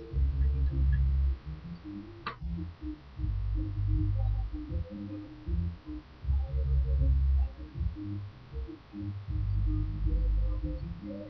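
Background music with deep bass notes swelling about every three seconds and shorter mid-pitched notes between them; a single sharp click about two seconds in.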